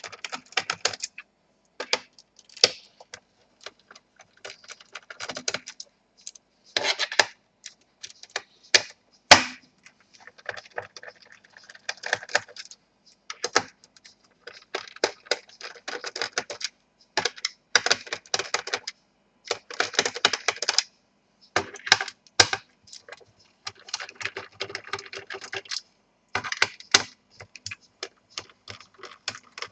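Hand screwdriver backing out the small screws from the plastic bottom case of an Acer Aspire 7535 laptop, making irregular clicks and short scraping bursts.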